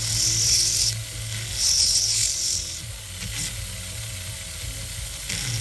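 Rotary handpiece with a small abrasive point grinding against an 18k white gold ring band, in a few short bursts of high hissing grinding over a steady low motor hum.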